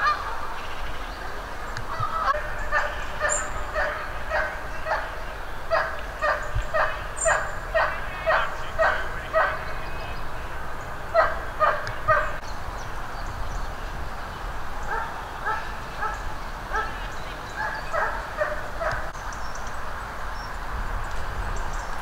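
Geese honking, a run of short repeated calls about two a second, breaking off after about ten seconds and starting again for a few seconds near the end.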